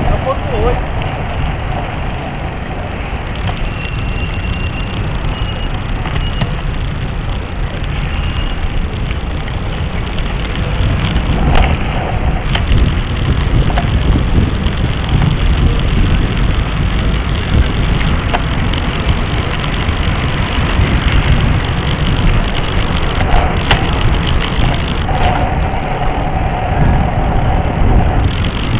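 Wind and road noise on a small action camera mounted low on a moving bicycle's frame: a rough, unsteady rumble with fine crackle from the tyres and mount over pavement.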